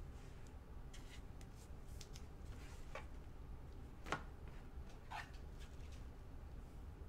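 Faint rustling and scattered soft clicks of trading cards and packs being handled, the sharpest click about four seconds in, over a low steady hum.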